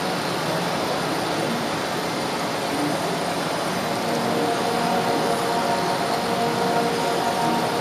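Electric model train running along the track, heard from on board: a steady rolling noise of wheels on rail with a faint motor whine.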